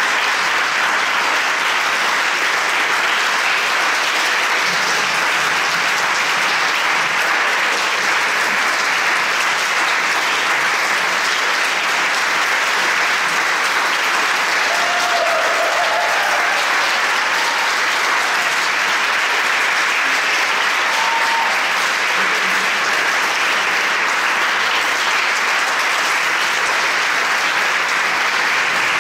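Audience applause, dense and steady.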